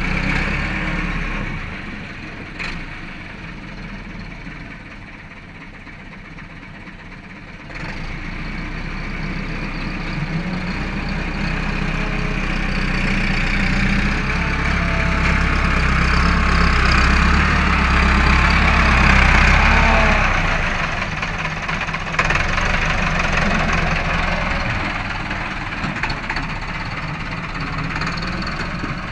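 Massey Ferguson 375 tractor's diesel engine working under load as it drags ploughs on a chain. It runs softer for the first several seconds, steps up about a quarter of the way in, builds to its hardest pull past the middle, then eases off.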